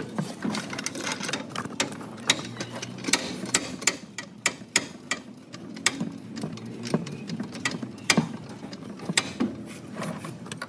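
Hand tools working on metal car parts: a run of irregular sharp metallic clicks and knocks, some louder than others, with no steady rhythm.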